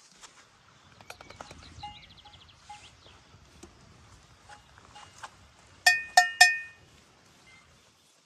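Livestock bells clanking irregularly with light metallic clinks, then three loud ringing clangs in quick succession about six seconds in.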